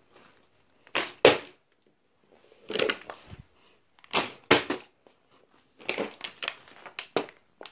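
A plastic water bottle knocking and crinkling against a wooden floor. The sharp knocks come mostly in pairs, about every second and a half.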